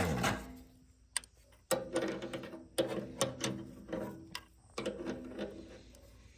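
Metal parts squeaking and clicking in several short bouts as a loose fitting on a tractor's fuel system is turned and taken off.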